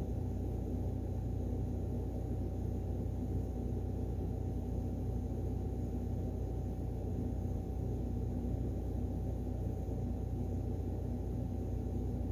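Steady low background hum with a faint constant tone above it, unchanging throughout.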